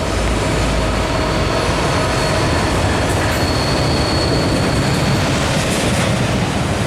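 Norfolk Southern freight train's auto rack cars rolling past as the train coasts downgrade: a steady, loud rumble of steel wheels on rail. Thin, steady wheel-squeal tones ride on top, a lower one in the first half and a higher one around the middle.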